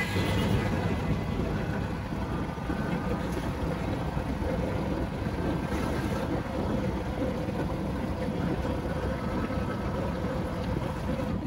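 Auto-rickshaw (keke) engine running steadily while driving, heard from inside the open-sided cab along with road and wind noise.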